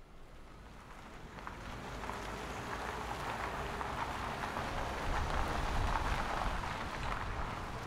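Vehicles driving up: low engine rumble and tyre noise, growing louder and loudest about five or six seconds in.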